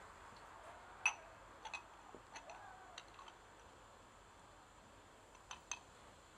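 Faint, sparse sharp clicks and taps, about eight in a few seconds over a steady low hiss: small birds landing on and pecking at a seed feeder.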